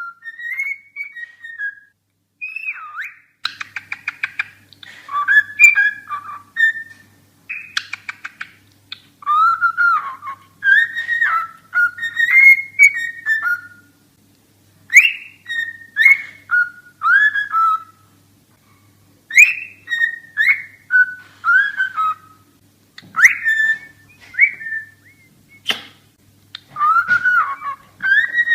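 Cockatiel whistling its song: a long string of short, gliding whistled notes with brief pauses, broken twice by buzzy chattering notes.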